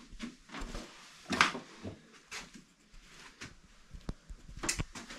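Scattered knocks, clunks and rustles of a bicycle being handled and hung on a scale for weighing. The loudest knocks come about a second and a half in and again near the end.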